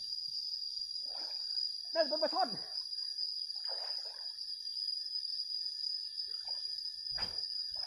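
Steady high-pitched buzz of insects. A brief voice is heard about two seconds in, and a single thump comes near the end.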